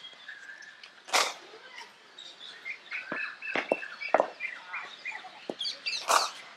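Sharp cracks of a cricket bat striking the ball, twice: once about a second in and once near the end. Birds chirp throughout.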